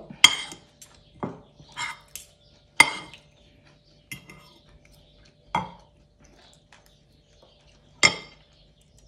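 Cutlery clinking and tapping on a plate while eating, about eight sharp clinks at irregular intervals, the strongest just after the start, about three seconds in and near the end.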